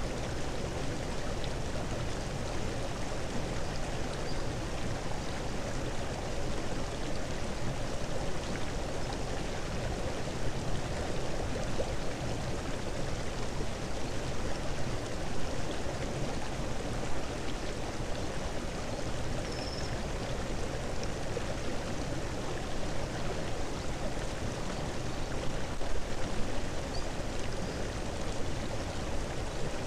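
A steady rushing noise like running water, unchanging throughout, with a few brief louder rustles scattered through it.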